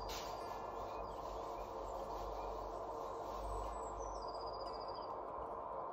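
Steady outdoor field ambience with a low background rumble and faint high bird-like chirps, one falling whistle about four seconds in, and a brief click at the very start.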